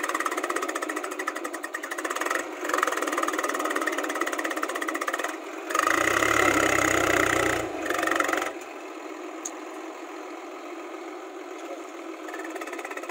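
Swaraj tractor's diesel engine running with a rhythmic knock, rising to a louder revving stretch about six seconds in that lasts some two and a half seconds, then dropping back to a quieter steady run as the tractor moves off through loose soil.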